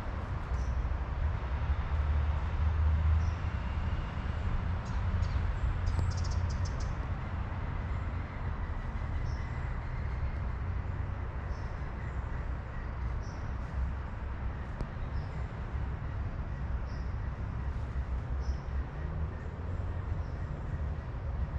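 A steady low rumble with short, faint, high bird chirps scattered through it every second or two.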